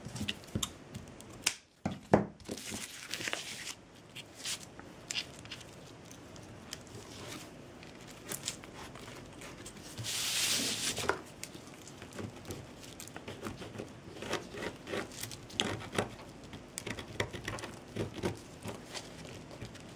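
Handling noises from working jute twine and small craft tools: scattered clicks, taps and rustles, with a longer scratchy rustle about ten seconds in.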